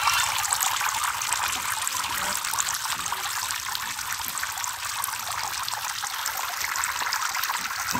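Many thin jets of water from a small pump-driven fountain falling onto a pond's surface, a steady splashing.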